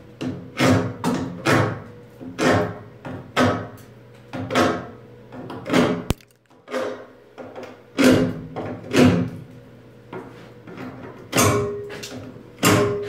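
A hand tool working the steel post-to-beam joint in a series of irregular strokes, about one or two a second, each with a short metallic ring: slag being cleaned off a fresh stick weld.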